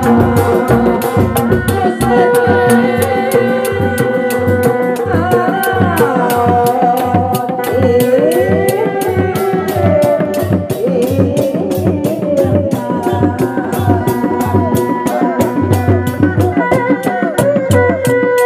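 Sundanese reak music: dogdog drums beating a fast, even rhythm, with a sliding, wavering melody line over them.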